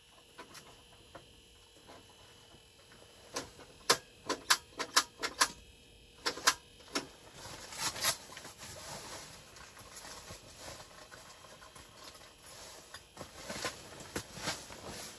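A quick run of about a dozen sharp clicks and knocks between about three and seven seconds in, then rustling and shuffling, as a person moves about on the ice floor of a fishing shelter.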